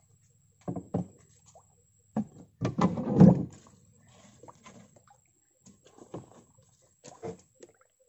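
Irregular knocks and thumps of a fish trap and its catch being handled in a wooden boat, a cluster of heavier thumps about three seconds in and a few lighter knocks after.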